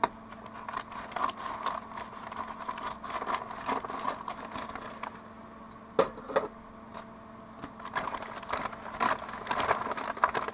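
A mailed parcel being opened by hand: cardboard and packaging crackling, tearing and snapping in irregular bursts, with one sharp snap about halfway through, over a faint steady hum.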